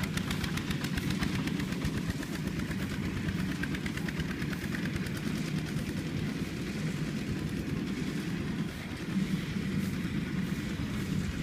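Two-wheel walking tractor's single-cylinder diesel engine running under load as it pulls a loaded trailer, a fast even chugging that grows fainter after about five seconds as it moves away, leaving a steady low engine drone.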